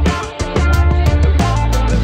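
Music with a steady beat and a heavy bass line.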